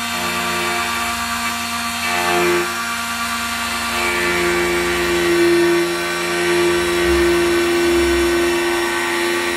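A multifunction key-duplicating machine runs steadily, its motor humming while the cutter cuts a tubular key. The hum shifts slightly in tone and level as the key is worked against the cutter.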